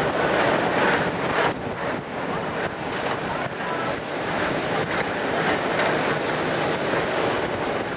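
Steady rush of wind and rolling noise aboard an open-sided Tomorrowland Transit Authority PeopleMover car moving along its track, with a few faint clicks.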